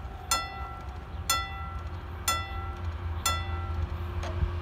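Level-crossing warning bell ringing in single strokes about once a second, each stroke ringing on briefly, over a low rumble.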